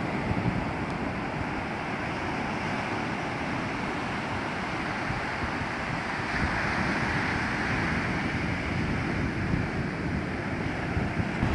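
Ocean surf breaking and washing up a sandy beach, with wind buffeting the microphone as a low rumble. The wash of the surf swells up about six seconds in and eases off a few seconds later.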